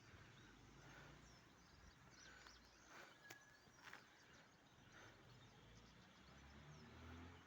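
Faint, distant birds chirping now and then, short scattered calls over a quiet rural background hiss, with a faint low rumble near the end.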